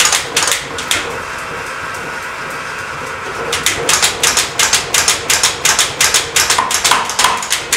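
A 25 kg ABNO mechanical power hammer's ram striking the bottom die with no work between, worked from the foot treadle: a few blows near the start, then a quick even run of about five blows a second from about halfway in.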